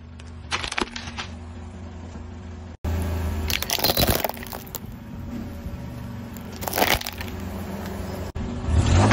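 A car tyre rolling over small plastic objects, crushing them in short bursts of cracking and crunching over the low hum of the car's engine. There are crunches about half a second in, a longer cluster around four seconds, one near seven seconds and another near the end.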